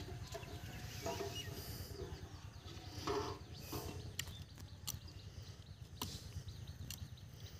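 Plastic bottles clicking and knocking, with light water sloshing, as baited bottle hook traps are handled and set in shallow water, over a low steady rumble. A few short distant calls come through, the loudest about three seconds in.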